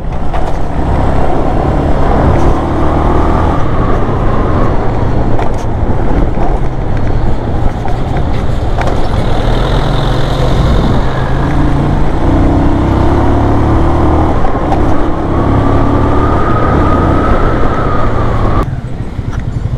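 Hartford Leopard 220 cc cruiser motorcycle's carbureted engine running while under way, over a steady rush of road and wind noise. The engine note rises and falls a little as the rider speeds up and eases off, and the sound drops quieter near the end.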